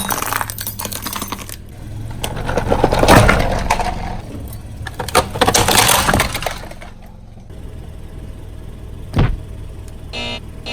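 Car tyre rolling over and crushing brittle objects: crackling and breaking that swells about three seconds in and again around six seconds, with a single sharp crack near the end.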